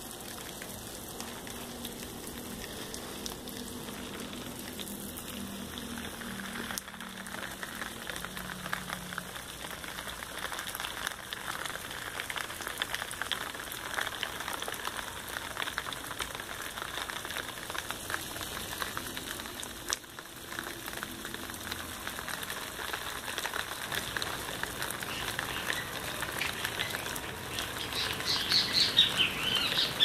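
Steady hiss and patter of falling water on garden foliage, like rain or irrigation spray. Near the end, a small bird gives a quick run of high chirps.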